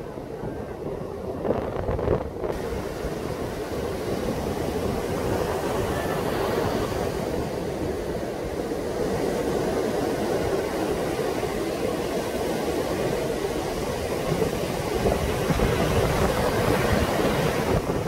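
Rough surf breaking and washing up a sandy beach in a strong wind, with the wind buffeting the microphone. The noise grows louder and fuller after about two seconds.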